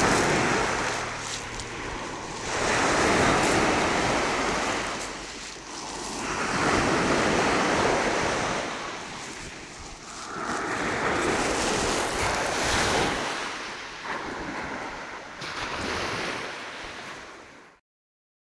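Sea waves washing onto the shore, the rush swelling and falling in surges every three to four seconds. It cuts off abruptly shortly before the end.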